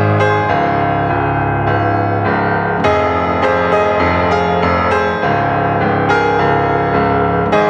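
Background instrumental music, a new note or chord starting about every half second.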